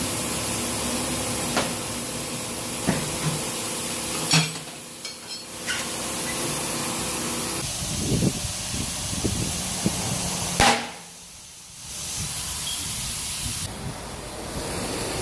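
Tire-changer work: a steady hiss of compressed air runs under metal tire irons knocking against the wheel rim as the tire is levered onto it. There are a few sharp knocks, and the loudest one comes about two-thirds of the way through.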